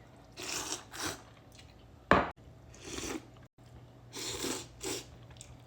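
Close-miked eating of pho: several short, wet slurps and mouthfuls of noodles and broth, with a sharp knock about two seconds in.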